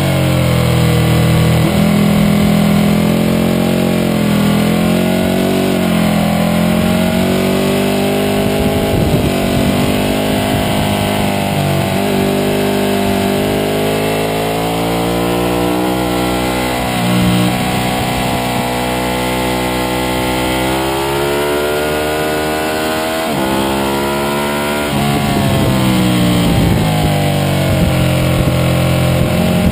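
Onboard sound of a Ducati 1199 Panigale's L-twin engine at track speed, its note climbing under throttle and dropping back several times as the bike is ridden through corners, with a shift from second to third gear.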